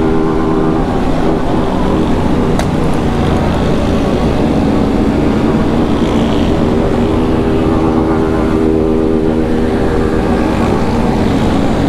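Motorcycle engine running steadily in third gear at about 55–65 km/h, with wind noise and other motorcycles of a big group ride close around it.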